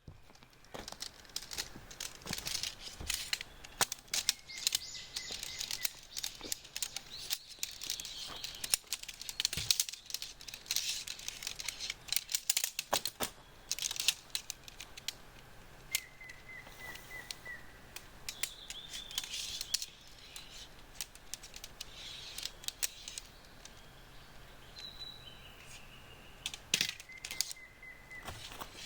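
Small birds chirping, with several short chirp series and trills, over steady outdoor ambience. Many irregular sharp clicks and crackles come through it and are the loudest sounds.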